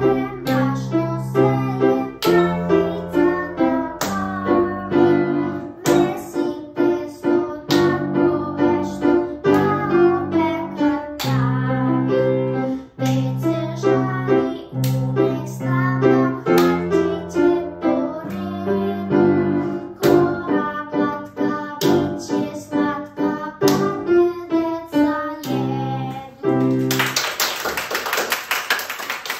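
A boy singing a solo song with grand piano accompaniment. The song ends about two seconds before the close, and clapping breaks out.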